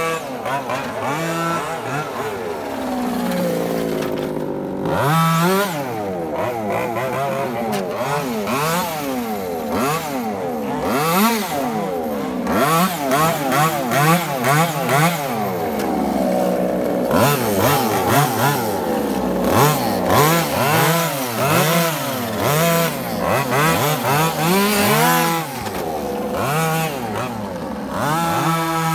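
Two 1/5-scale FG Sportline Mini 510 4WD RC cars with Zenoah 26cc two-stroke petrol engines running on a track. The engines rev up and down over and over, and the two engine notes overlap.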